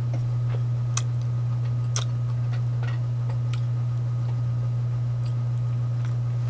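Steady low hum with a few light clicks on top, the clearest two about a second in and a second after that.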